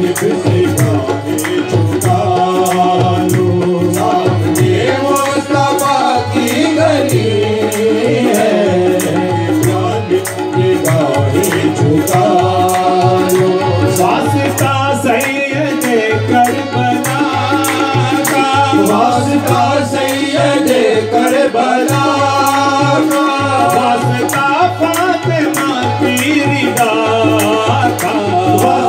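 Qawwali music: harmoniums playing the melody over a steady tabla rhythm and hand clapping, with voices singing along.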